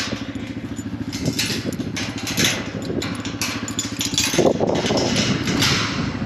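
Farm motorbike engine idling with a fast, even putter, revving up briefly about four seconds in. A few short metallic clanks come from the steel mesh gate being handled.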